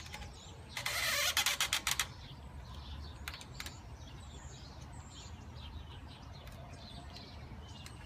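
Ratcheting screwdriver clicking rapidly for about a second while tightening the screws of a plastic U-lock frame mount clamped to a bicycle's seat tube, followed by a few single clicks. Birds chirp faintly over a low steady rumble.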